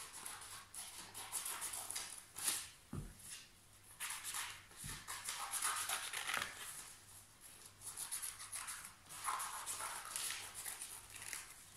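Small scissors snipping through a folded sheet of paper, with paper rustling as the sheet is handled and turned between cuts.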